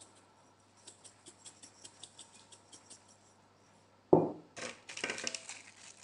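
Kitchen handling while seasoning chicken: a run of faint quick ticks, then a loud knock about four seconds in, followed by a stretch of clattering and rustling.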